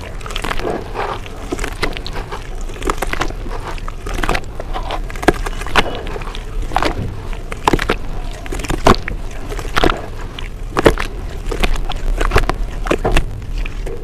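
Close-miked chewing of a creamy, crunchy brown dirt paste: irregular crunches and clicks, with sharper ones every second or so, over a steady low hum.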